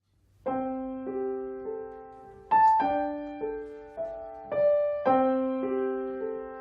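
Solo piano playing a simple, gentle melody of single notes, each struck and then fading, starting about half a second in.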